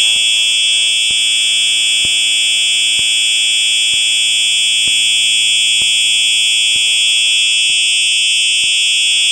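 Simplex 4903-9238 fire alarm horn/strobe sounding its horn as one steady, loud electronic tone without a break. A faint click comes about once a second as the strobe flashes.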